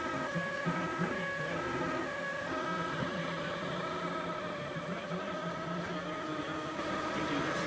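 Kossel delta 3D printer running a print: its stepper motors whine in tones that shift in pitch every fraction of a second as the print head moves, over a steady cooling-fan hiss.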